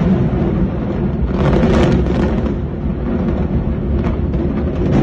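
Controlled demolition of high-rise concrete towers: a rapid chain of explosive charges going off and merging into a dense, steady low rumble as the building collapses, with louder crackling surges about a second and a half in and again at the end.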